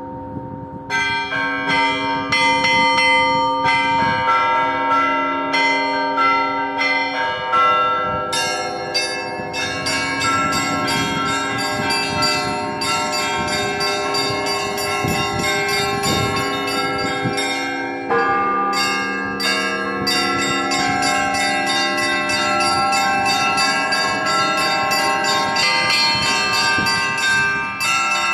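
Russian Orthodox church bells rung together in a continuous festive peal: quick repeated strikes on small high bells over deeper bells that ring on underneath. The pattern changes about 18 seconds in, when a new lower bell joins.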